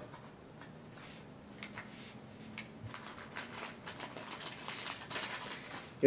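Faint rustling and crinkling of a small clear plastic bag and foil packets being handled, with light clicks that get busier in the second half.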